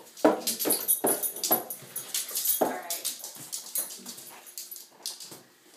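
Kitten crying out again and again with its head stuck in a cardboard tissue box, mixed with sharp knocks and scrapes as the box hits the tile floor. The cries come thick in the first three seconds or so and die away near the end.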